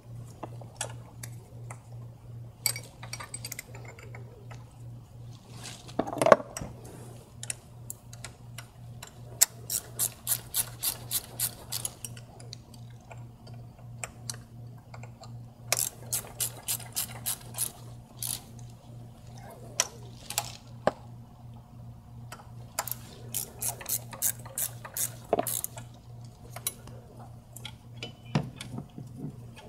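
Hand ratchet clicking in several short runs, about five clicks a second, as the T30 Torx mounting bolts of a VW 2.0T TSI high-pressure fuel pump are run in a little at a time. There is one louder knock about six seconds in, over a low steady hum.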